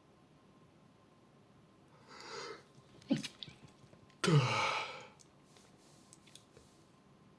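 A man's breathy inhale, then two pinch-stifled sneezes about a second apart, held back with the nose pinched shut. The second is the louder and longer, falling in pitch.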